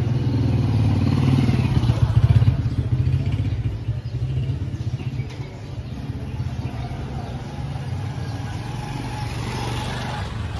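Motorcycle engine running as it passes close by, loudest about two seconds in and fading away by about four seconds, leaving a steady background of street traffic.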